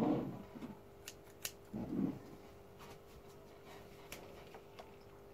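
Scissors being handled and snipping: a few short, sharp clicks spread out over several seconds, with dull handling bumps near the start and again about two seconds in.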